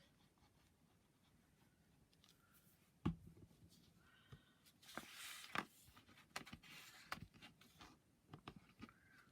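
Faint handling of card pieces during gluing: a single sharp tap about three seconds in, then light rustling and scattered small clicks.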